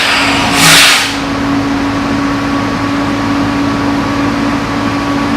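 Boart Longyear LX11 drill rig running steadily during reverse-circulation drilling, with a constant engine hum. About half a second in comes a loud, short burst of hiss lasting about half a second.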